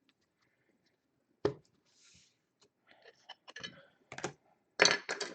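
Things being handled and set down on a tabletop: a sharp knock about 1.5 seconds in, a brief rustle, then a run of clicks and taps that grows louder near the end.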